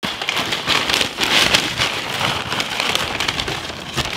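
Crispy french fries pouring from a paper bag onto a heap on a metal tray: a dense, continuous patter of many small clatters, like rain, with the paper bag rustling.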